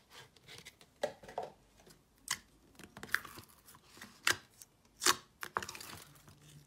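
Sticky jam-textured slime being kneaded and pulled apart by hand in a plastic tub, giving a series of sharp sticky pops and crackles about once a second.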